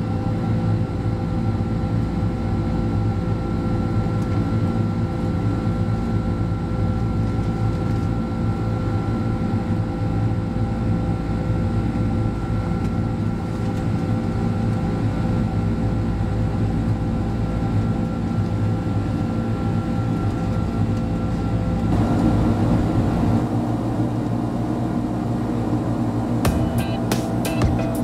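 Boeing 767-300 jet engines and airflow heard as a steady drone with a low rumble and a constant hum. About 22 seconds in the sound grows a little louder and rougher. Near the end a run of sharp regular clicks comes in.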